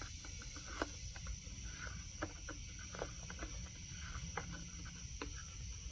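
Scattered light clicks and knocks as the chainsaw's chain, bar and tensioner are handled and fitted, over a steady high chirring of insects.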